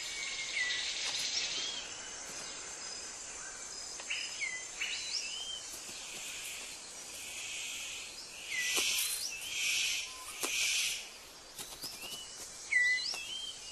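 Rainforest ambience of many short, hooked bird whistles, repeated throughout, with three brief bursts of hiss midway through.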